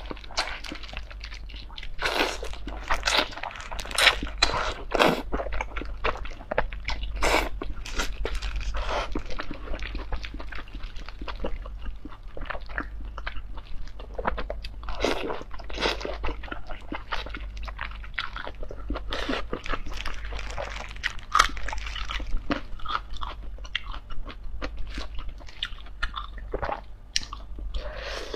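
Close-miked eating: a person biting into and chewing oily braised lamb intestines, with many short, wet bites and chews at an irregular pace.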